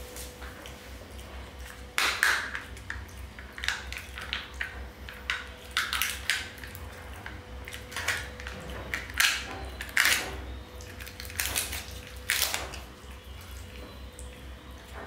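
Plastic wrapper and shell of a Kinder Joy egg crinkling and crackling as it is torn and pulled open by hand, in a run of sharp, irregular rustles.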